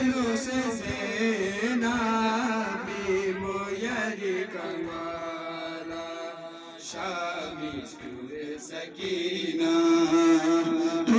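A man's voice chanting a mourning lament (nauha) in slow melodic phrases, with long held notes around the middle and again near the end.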